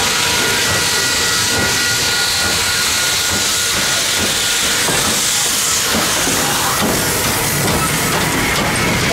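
C&O 1309, a Baldwin-built 2-6-6-2 Mallet steam locomotive, working slowly past with steam hissing loudly from around its cylinders, over the uneven chuff of its exhaust.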